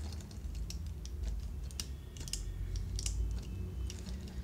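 Small, irregular plastic clicks and light rattles as the parts of a Transformers Human Alliance Leadfoot action figure are turned and snapped into place by hand, over a low steady hum.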